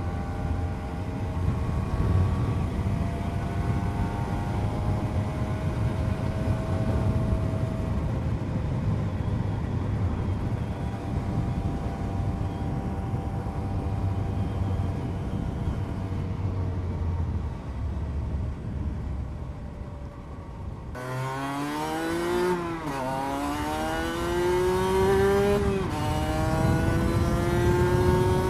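Cagiva Mito 125 single-cylinder two-stroke engine under way with heavy wind rush, its pitch drifting slowly. About three-quarters of the way in it revs hard, the pitch climbing steeply and falling back sharply twice as it shifts up through the gears.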